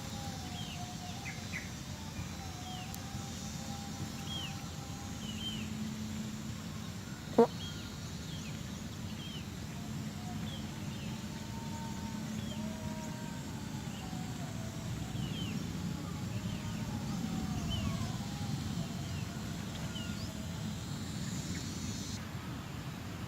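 Rural outdoor ambience: short falling bird chirps repeating throughout over a low, wavering engine hum, with one sharp click about seven seconds in.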